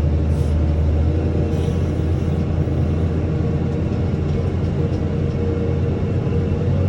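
Farm tractor engine running steadily at an even speed, a low constant drone.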